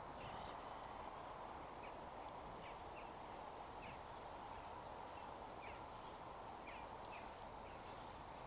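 Small birds chirping now and then, short high calls scattered through, over a faint steady background hum.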